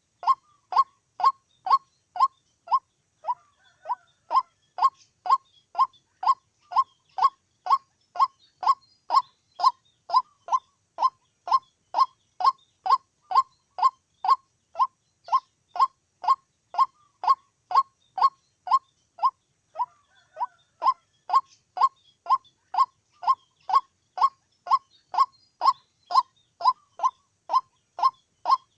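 White-breasted waterhen calling, a short note repeated steadily at about two a second with no break. A second, fainter call sounds briefly a few seconds in and again about two-thirds of the way through.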